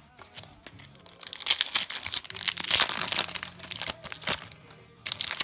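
Foil wrapper of a Yu-Gi-Oh! booster pack crinkling and tearing as the pack is ripped open, a dense crackle that starts about a second in and dies down near the end.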